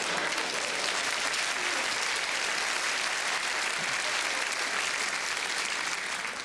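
Large theatre audience applauding, dying away near the end.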